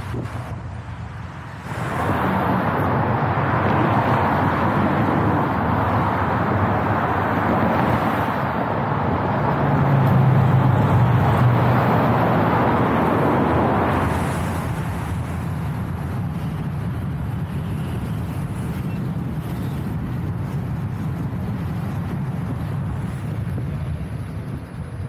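Road and wind noise while riding an electric unicycle in traffic. A steady rush that turns much louder about two seconds in, stays that way for about twelve seconds, then settles back to a lower steady rush with a low rumble.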